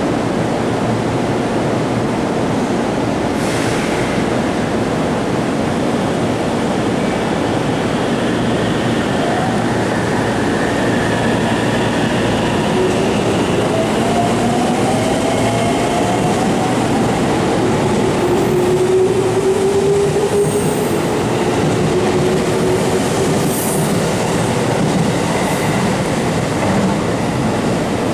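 JR Central 313 series electric multiple unit moving at a station platform: a steady rumble of train running noise, with the whine of its traction motors gliding in pitch through the middle, and a few brief high squeals later on.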